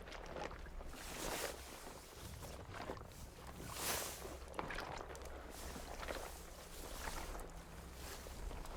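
Faint water washing and sloshing around a boat, with soft swells of rushing water and small knocks.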